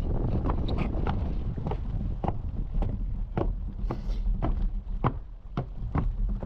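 Bicycle rolling along a gravel path: a steady low rumble of tyres and wind on the microphone, with irregular sharp clicks and knocks from the bike and stones, about two or three a second.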